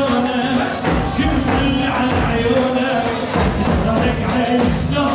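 Live Middle Eastern wedding dance music: a large double-headed bass drum beaten with a stick keeps a steady pulse of low thumps under a held melody line.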